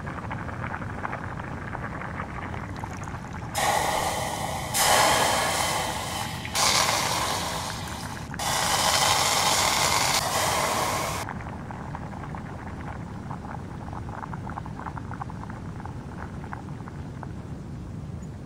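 Burning plastic whistle melting with a steady low crackle. A few seconds in come four loud rushing hisses, each switching on and off sharply, the last one longest before they stop.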